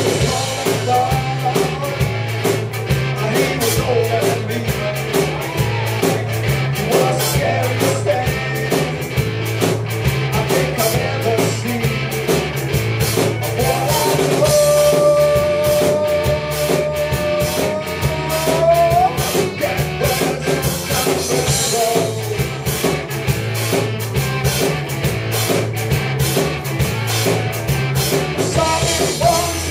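Rock band playing live: a male singer over guitars and a drum kit, with a long held note about halfway through.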